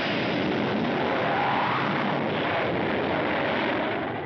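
Jet aircraft engine running with a steady roar, fading out near the end.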